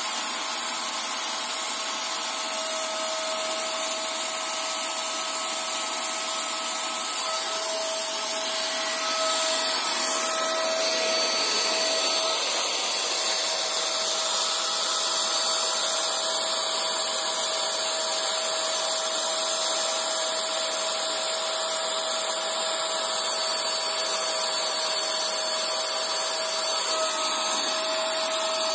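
INGCO electric paint sprayer's turbine blower running steadily: a constant whining hiss with a steady hum-like tone, as paint is sprayed onto a wall.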